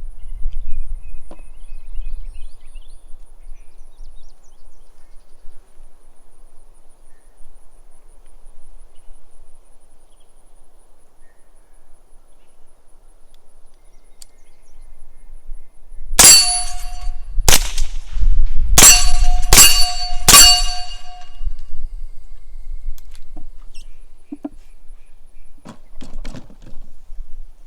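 Five suppressed gunshots from a rifle or pistol fitted with a monocore suppressor, fired about a second apart and each followed by a brief metallic ring.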